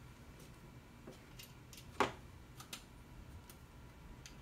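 Small precision screwdriver driving a small electronics screw through the steel rack-mount tray into the appliance. Light metallic ticks and clicks of the tip on the screw head and steel, with one sharper click about two seconds in.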